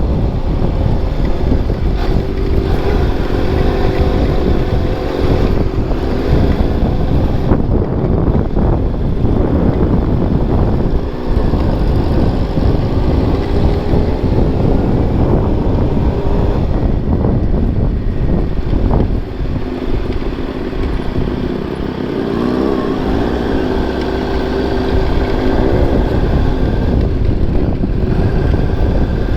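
Motorcycle engine running on the move, its pitch rising and falling with the throttle, over steady wind rush on the microphone.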